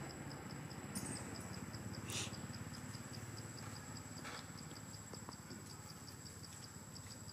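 Insects chirping in an even, rapid pulse of about five high chirps a second over a continuous high whine, with a few brief scratchy noises, the loudest about two seconds in.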